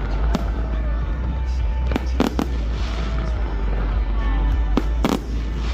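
Fireworks bursting overhead: sharp bangs just after the start, a quick run of three about two seconds in, and two more near the end, over music.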